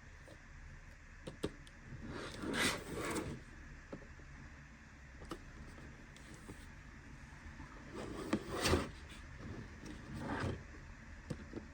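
Toy unboxing handling sounds: three short rustling swishes and a scattering of small clicks.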